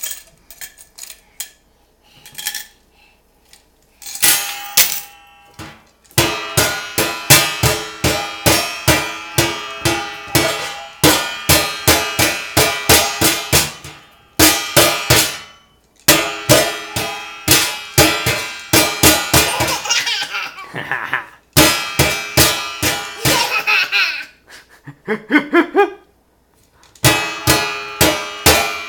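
A clear jar banged repeatedly on the lid of a stainless steel pedal bin, each hit sharp and setting the metal lid ringing. The hits come about three a second in runs, with brief pauses between runs.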